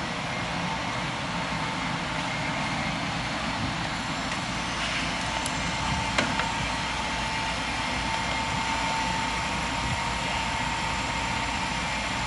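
Sikama Falcon 8x10/C wafer machine running at temperature: a steady mechanical whirr with a faint steady tone, and a single click about six seconds in.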